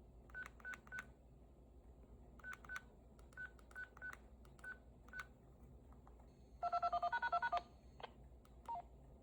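Faint keypad beeps as digits are keyed in, then about a second-long rapid string of roughly ten DTMF touch-tones. This is a command for a DTMF siren controller, with extra digits placed before the arm code.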